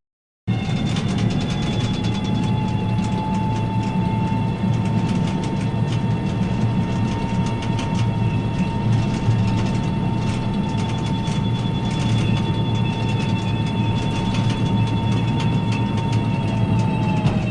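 Tank turret traversing: a steady high motor whine over a low rumble and fine gear clatter. It starts about half a second in and dips slightly in pitch near the end.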